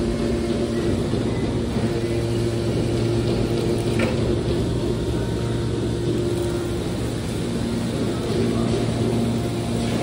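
Hydraulic scrap-metal baler's power unit running with a steady hum while its ejection cylinder pushes a bale of compressed metal shavings out of the chamber. A single short click about four seconds in.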